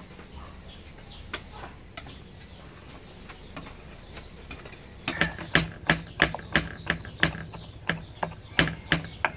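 Knife chopping garlic and red chilli on a round wooden cutting board: sharp, even chops about three a second, starting about five seconds in. Before that, only faint light clicks of a spoon stirring batter in a stainless steel bowl.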